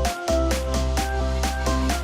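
Electronic dance-style background music with a steady drum beat, a heavy bass line and a synth melody.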